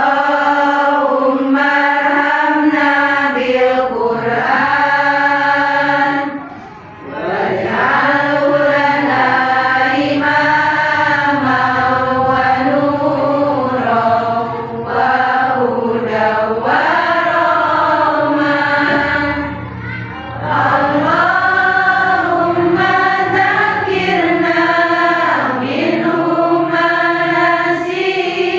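Melodic Qur'an recitation: a single voice chanting long, ornamented phrases that waver up and down in pitch. There are short pauses for breath about seven seconds in and again around twenty seconds.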